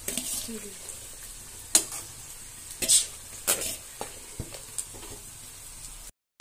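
Cooked basmati rice being tipped into a pan of frying egg, onion and capsicum: a low sizzle, with four sharp knocks against the pan spread over a few seconds.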